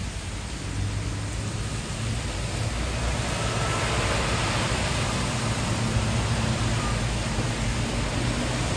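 Heavy rain falling on wet pavement, a steady hiss, with a low rumble of road traffic underneath. It grows a little louder about three seconds in.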